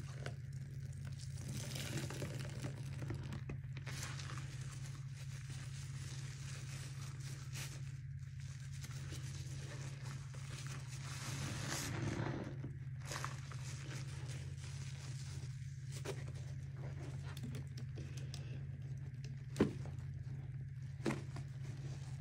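Wet squelching and crackling of soapy scrub sponges being squeezed out and foam being worked by rubber-gloved hands, with a steady low hum underneath. Two sharp knocks near the end.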